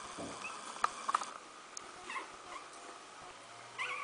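Two-week-old Smooth Fox Terrier puppies making faint high squeaks and whimpers, with a louder wavering squeal near the end. A few sharp clicks about a second in.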